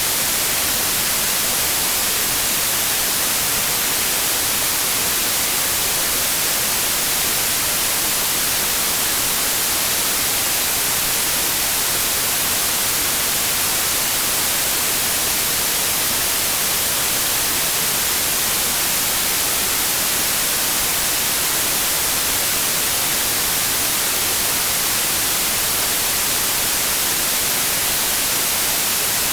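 Synthetic white noise: a steady, unchanging hiss, brightest in the treble.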